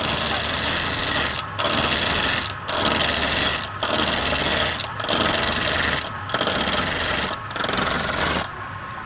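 A hand-held turning chisel cutting into a large spinning wooden blank on a lathe: a rough, rasping scrape in passes broken by short gaps about once a second. It stops shortly before the end.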